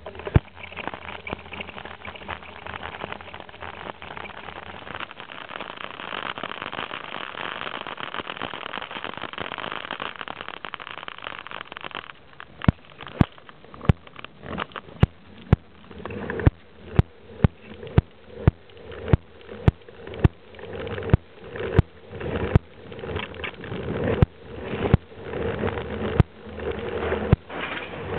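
A long train passing close by: a steady rush of wheels on rails, then from about twelve seconds in, sharp regular clacks about twice a second as the wheels cross rail joints.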